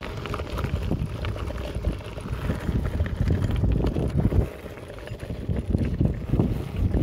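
Wind buffeting the microphone while a mountain bike rolls over a gravel track, its tyres crunching on the stones and the bike rattling. A loud, uneven rumble that dips briefly about five seconds in.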